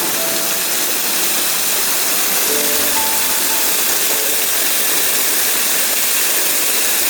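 Steady rushing of a waterfall, with soft background music laid over it.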